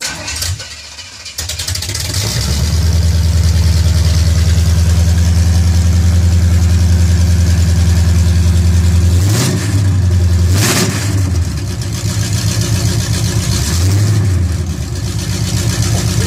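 A Chevy 350 small-block V8 in a 1981 C10 pickup is started and settles into a deep, steady exhaust rumble. The throttle is blipped twice in quick succession about nine and a half seconds in, and once more, lighter, about fourteen seconds in.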